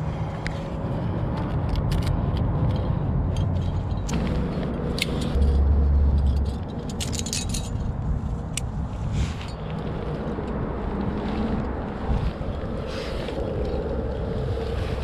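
Wind rumbling on a helmet-mounted camera's microphone, with a stronger gust about six seconds in. Over it, a run of light metallic clinks and jangles of climbing gear, cams and carabiners on the harness rack, being handled, mostly in the first two-thirds.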